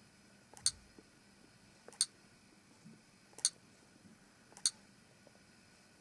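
Four short, sharp clicks about a second or so apart, one per key press as a code is typed a character at a time on an Android tablet's on-screen keyboard.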